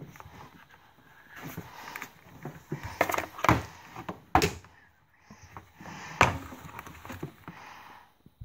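Handling noise: irregular knocks and clicks with rustling in between, the loudest knocks about three to four and a half seconds in and again around six seconds.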